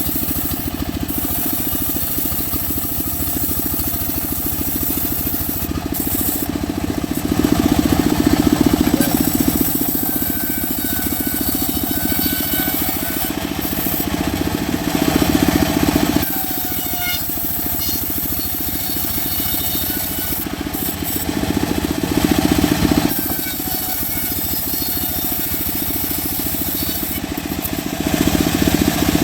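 Engine-driven homemade sawmill running and cutting through mahogany wood: a steady mechanical hum with a rasping sawing noise that swells louder several times.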